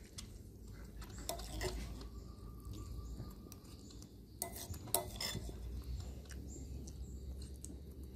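A few light clinks of metal spoons against ceramic bowls, about a second and a half in and again twice around four and a half to five seconds, over a low steady background rumble.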